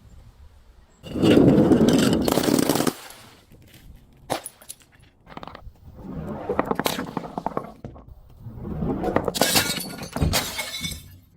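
Glass being crushed: a long, loud crunch of breaking glass about a second in, then two more stretches of crackling and cracking with scattered sharp snaps between.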